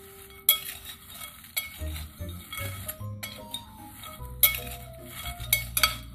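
A metal spoon stirring crispy fried pasta chips in a glass bowl to coat them with seasoning: a dry rustling crunch of the pasta, with several sharp clinks of the spoon against the glass.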